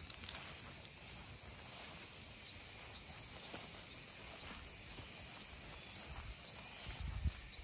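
Steady high-pitched chorus of insects such as crickets, with a few soft footsteps on grass thumping low near the end.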